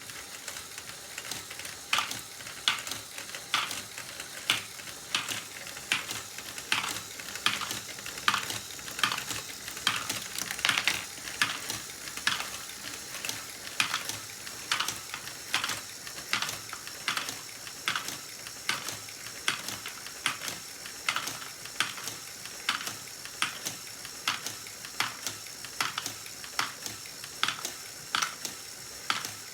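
Lego Technic Great Ball Contraption turntable cup-to-cup module running: plastic balls clattering into and out of the cups on the turning turntable, with mechanism clicks. The clicks come in a steady rhythm of a little more than one a second.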